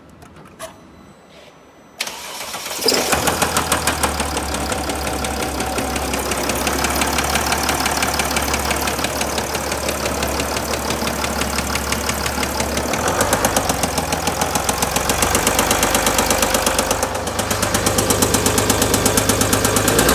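Mercedes-Benz OM642 3.0 V6 diesel is cranked and catches about two seconds in, then idles with a steady rhythmic knock coming from the engine.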